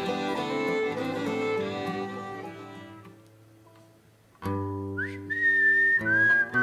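Intro music fades out. After a brief pause, a strummed acoustic guitar chord comes in, and a person whistles a melody over it with a high, pure, held note.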